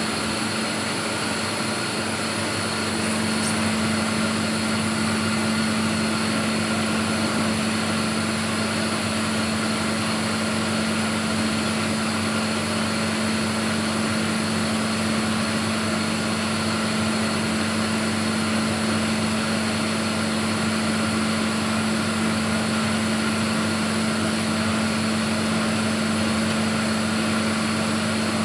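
Tube-ice machine running on a test run: a steady mechanical hum with a strong low tone, which grows louder a couple of seconds in, over an even whirring noise.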